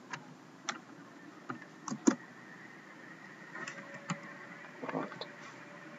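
Scattered keystrokes on a computer keyboard: about nine single clicks, irregularly spaced, over a faint steady hiss.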